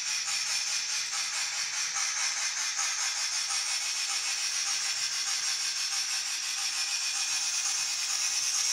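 Factory DCC sound decoder in a Mantua 0-6-0 Pennsylvania saddle tank switcher model playing a steady steam-locomotive hiss through its small speaker, with a faint, even pulsing.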